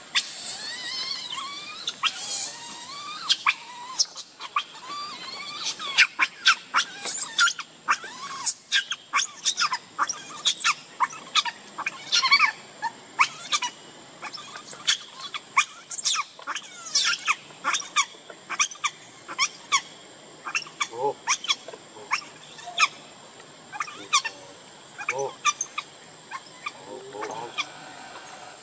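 Hungry baby macaque screaming and squealing. Long high wailing screams come first, then a fast run of short, sharp squeals, about two a second.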